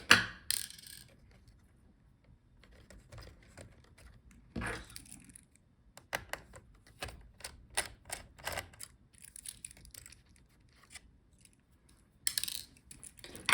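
Small sharp clicks and taps from handling laptop parts during disassembly, likely the M.2 SSD and its screw being removed, with a quick run of clicks about six seconds in and brief scrapes.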